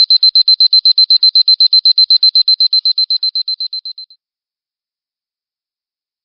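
Electronic alarm clock beeping: a rapid run of high-pitched beeps, about seven a second, that fades out and stops about four seconds in.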